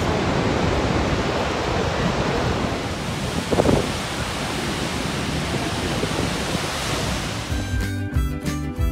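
Steady roar of Niagara Falls, mixed with wind on the microphone, briefly louder about three and a half seconds in. Background music comes in near the end.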